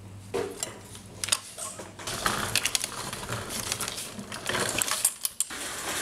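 Quick, irregular metallic clicking and rattling as the parts of a bicycle's rear end are handled while the coaster brake arm is worked free of the frame, busiest in the middle of the stretch.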